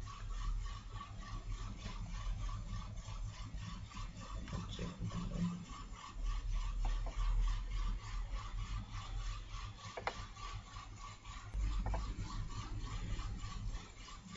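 Faint background noise of a desk recording setup: a low rumble and a steady pulsing whine, with a few faint clicks.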